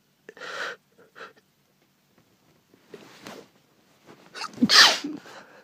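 A woman sneezing: a few short breathy gasps, then one loud sneeze near the end.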